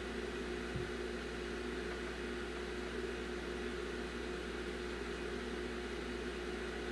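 Steady background hum and hiss of a small room, with a few steady tones and a low hum underneath and one faint tick just under a second in.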